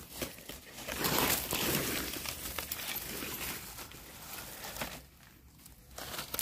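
Dry fallen leaves rustling and crackling as hands and a knife work through leaf litter and soil to dig out a small mushroom. The rustling starts about a second in and dies down near the end.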